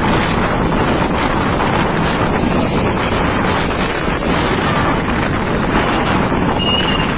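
Strong wind blowing hard and buffeting the microphone in a loud, steady rush.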